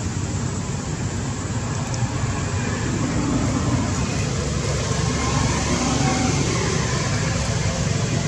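Steady low background noise with no distinct events.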